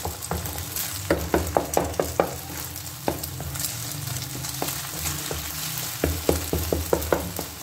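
Beaten eggs sizzling in oil in a non-stick frying pan as a spatula stirs and breaks them into small pieces, with quick irregular taps of the spatula against the pan.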